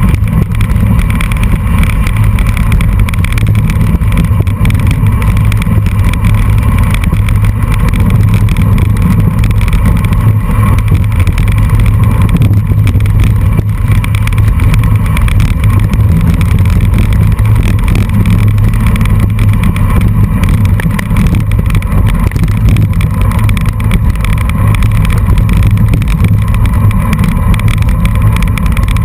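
Steady, loud low rumble of wind buffeting and gravel-road vibration picked up by a camera mounted on a road bike riding on a dirt road.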